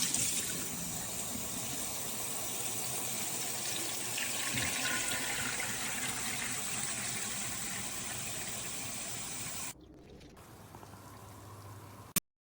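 Water running and filling a container, a steady hiss that stops suddenly about ten seconds in; a fainter sound follows and ends with one sharp click.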